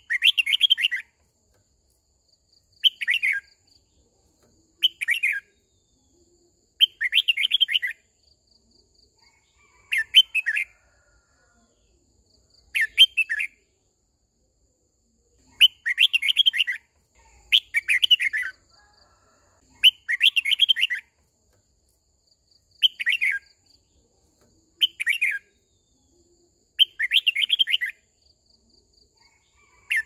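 Red-whiskered bulbul singing: short warbled phrases, about a dozen of them, each repeated roughly every two seconds with silence in between.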